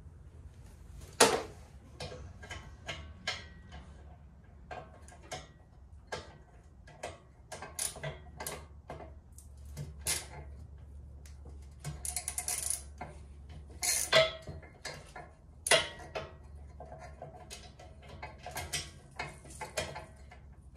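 Hand tools working on a steel tractor frame: a socket wrench and ratchet clicking and metal parts clanking and ringing, with a loud clank about a second in and a quick run of ratchet clicks around the middle.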